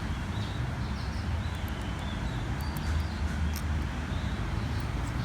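Steady low background rumble, like traffic or room hum, with a few faint light clicks in the middle.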